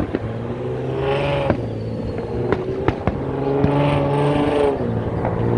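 A vehicle engine running and revving, the pitch swelling about a second in and again past the middle, then dipping near the end. Scattered sharp firework bangs sound over it.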